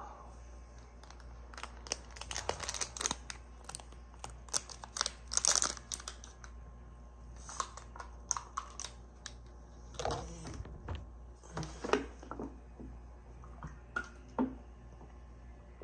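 A plastic stick-pack sachet crinkling and being torn open and squeezed, with many scattered small clicks and crackles of plastic packaging being handled.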